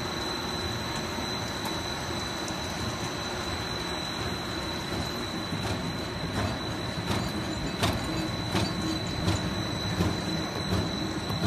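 Dog-treat production line machinery and its mesh-belt conveyors running: a steady clattering mechanical noise with a thin high whine. About halfway through, sharp clicks start repeating roughly every 0.7 s.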